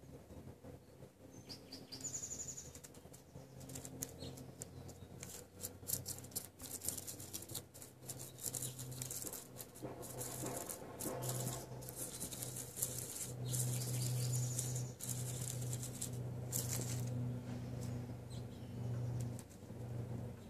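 Small burrowing rodent rustling and scratching in loose dry soil and sunflower seed husks, in quick irregular crackles, over a steady low hum that grows louder in the second half.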